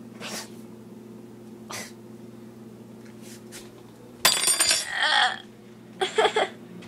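Coughing and gagging on a mouthful of dry cinnamon powder in the cinnamon challenge. It starts with one loud, harsh cough about four seconds in that overloads the microphone, and three quick coughs follow near the end.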